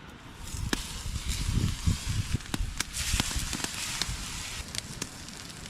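Cooking fire crackling, with scattered sharp pops over a steady hiss.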